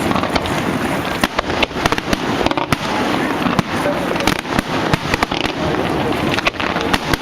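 Fireworks display going off: a dense, irregular series of sharp bangs and pops, several a second, over a constant crackling din.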